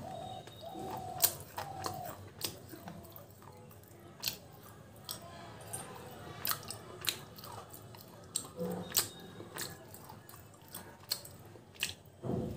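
Close-up chewing of a hard, chalky chunk of red slate, with sharp crunches between the teeth at irregular intervals, about one a second, and soft mouth sounds between them. A short hummed note comes at the start.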